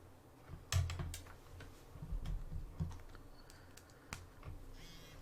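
A few faint, irregular clicks and taps over a low, steady hum.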